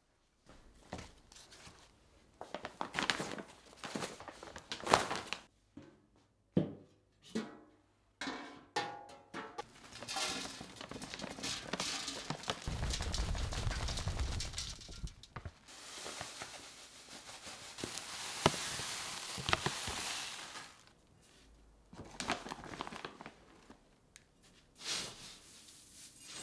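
Stacked plant pots being unwrapped and handled, with rustling wrapping and light knocks. About ten seconds in, potting soil is poured into a pot as a steady rushing hiss lasting about ten seconds, and near the end a metal trowel scrapes and scoops through soil mixed with perlite.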